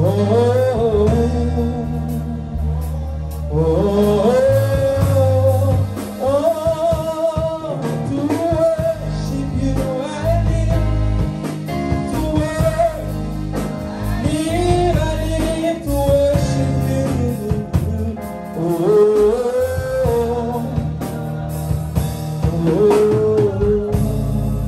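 A man singing a slow gospel worship song into a microphone, stretching out long, wavering notes without clear words, over a live church band with bass and drums.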